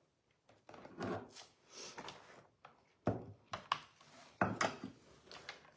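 Cardstock and tools being handled on a paper trimmer: a series of short scrapes and rubs with a couple of sharp clicks, the loudest scrape a little past halfway.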